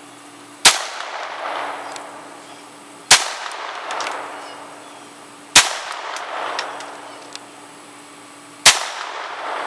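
Four single shots from a Ruger Mark II 22/45 .22 LR pistol, fired about two and a half to three seconds apart, each sharp crack followed by a fading echo.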